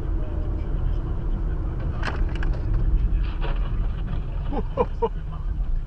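Steady low road and engine rumble heard inside a moving car, with a few sharp clicks about two seconds in and a brief voice near the end.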